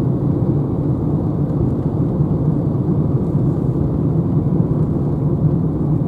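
Steady road and tyre rumble with wind noise inside the cabin of a Renault Zoe electric car cruising at about 75 km/h; there is no engine sound.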